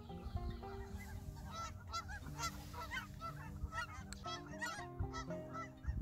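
A flock of Canada geese honking, many short calls overlapping in a rapid, continuous chorus.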